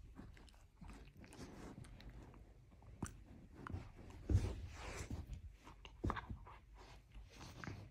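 Miniature poodle nibbling and mouthing at socks on a person's feet: soft irregular chewing clicks and rustles of fabric and fur, a little louder about four seconds in.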